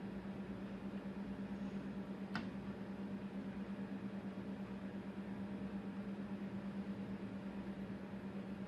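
A steady low hum with a fast flutter, and one sharp click about two and a half seconds in.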